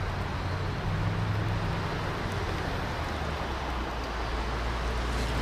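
Mercedes-AMG GT 4-Door Coupé rolling slowly at low revs, its engine and exhaust a steady low rumble.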